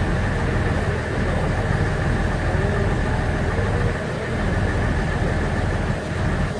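Steady engine noise: an unbroken low rumble with a faint high whine, holding the same level throughout.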